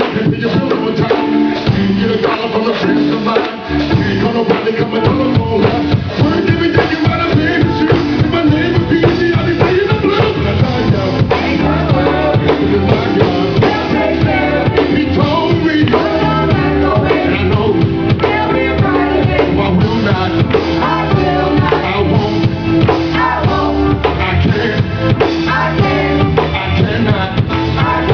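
Live gospel band music with a drum kit keeping a steady beat under bass and other instruments. There is a short break in the beat about three and a half seconds in.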